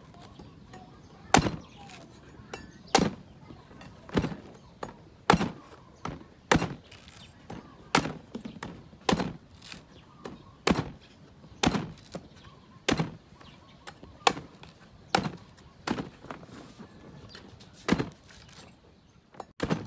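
A cleaver chopping into the husk of a green coconut: a sharp chop roughly every second, about fifteen strikes in all.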